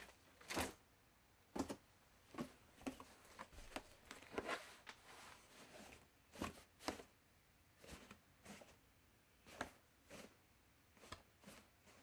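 A laundry basket being handled: an irregular string of short rustles and light knocks, a few of them noticeably louder than the rest.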